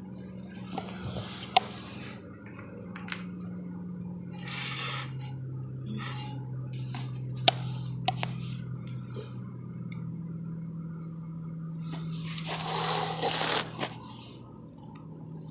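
Fingers handling and adjusting the phone that is recording, rubbing and tapping close to its microphone. This gives short bursts of rustling, the longest near the end, and a few sharp clicks, over a steady low hum.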